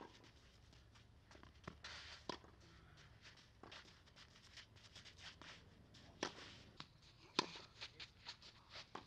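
Tennis ball struck by a racket several times in a rally, sharp hits a few seconds apart, the loudest two about six and seven and a half seconds in, with faint shoe scuffs on the clay court between them.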